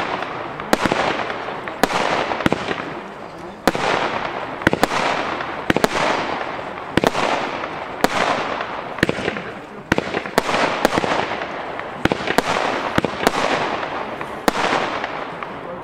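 Weco Asgard 180-shot compound firework cake firing: sharp bangs about twice a second, each followed by a hissing spray that fades.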